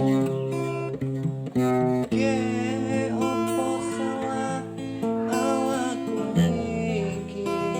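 Music: plucked acoustic guitar notes, with a wavering melody line over them.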